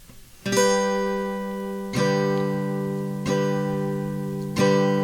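Acoustic guitar starting a song: after half a second of quiet, four strummed chords, one about every second and a half, each left to ring and slowly fade.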